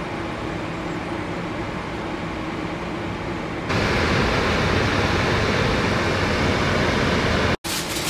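Paella simmering in a flat paella pan on an electric hotplate: a steady hiss and crackle of the cooking rice and stock. It gets louder and brighter about four seconds in, cuts out for an instant near the end, and comes back.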